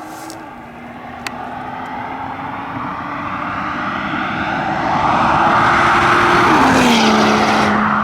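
Volvo S60 Polestar engine pulling under acceleration, its note climbing slowly and growing louder, then dropping in pitch with an upshift about six and a half seconds in before easing off.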